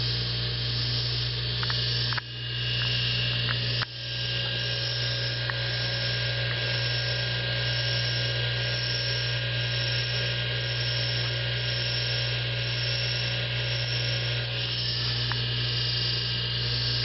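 Bench lathe's two-speed centrifugal-start induction motor running steadily at speed with a strong electrical hum and a higher whine. The level dips briefly twice in the first four seconds, with a few faint ticks.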